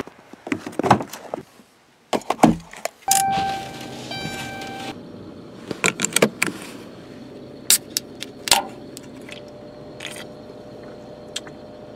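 Getting into a car: door handle and door clicks and keys rattling, then a steady electronic warning chime for about two seconds. After the chime a seatbelt buckle clicks into its latch, followed by a few scattered clicks and handling noises.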